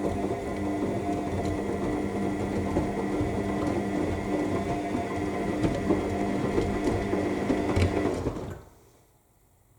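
AEG 7000 Series L7FE7461BI washing machine in its main wash: the drum motor runs with a steady hum and whine while the wet laundry tumbles and sloshes with soft knocks. The drum stops about eight and a half seconds in, a pause between tumbling turns.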